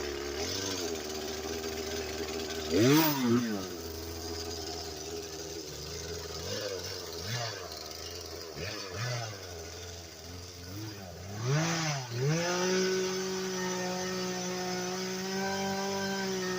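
Two-stroke gas chainsaw engine revved up and down several times, with the biggest surges about three seconds in and again about twelve seconds in, then running at a steady speed.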